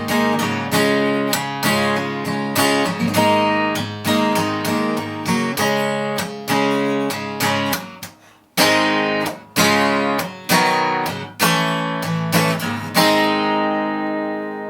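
Acoustic guitar strumming chords, with a short break about halfway through, ending on a final chord left to ring and fade.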